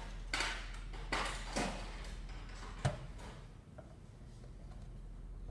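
A few short rustling, handling noises, then one sharp click a little under three seconds in, over a steady low electrical hum.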